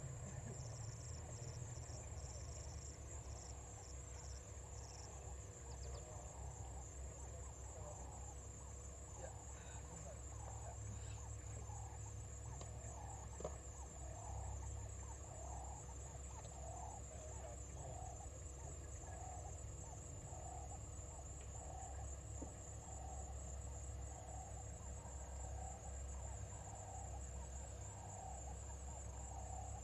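Bush ambience: a steady high insect trill, with a low animal call repeated about every second and a quarter from about halfway through, and a few short high bird chirps in the first few seconds, over a low rumble.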